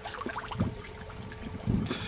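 Glacier meltwater stream trickling and splashing over rocks as a bottle is held under the water to fill. A couple of low bumps come about half a second in and near the end.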